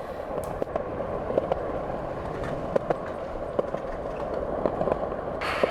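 Skate wheels rolling over pavement: a steady rolling rumble, with irregular sharp clicks as the wheels cross cracks and joints.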